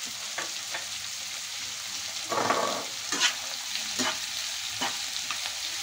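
Garlic, onion and tomatoes frying in hot oil with a steady sizzle. A spatula stirs and knocks against the pan several times, with a brief louder burst of sizzling and scraping about halfway through.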